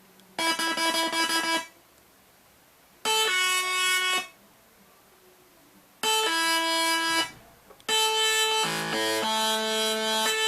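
Electronic synthesizer sounding held, buzzy tones rich in overtones: three separate notes of about a second each with pauses between, then from about eight seconds a run of notes that change pitch one after another.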